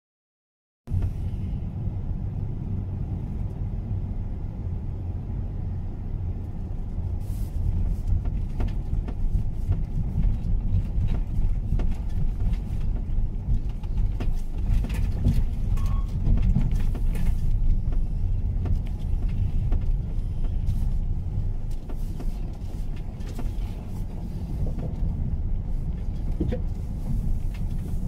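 Car cabin noise while driving slowly over a gravel road: a steady low rumble of tyres and engine with scattered small ticks, starting about a second in.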